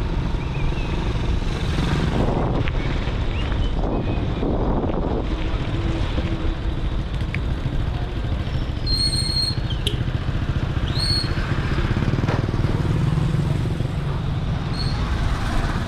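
Steady wind and road rumble on the microphone of a moving bike, with a few short high-pitched chirps in the second half.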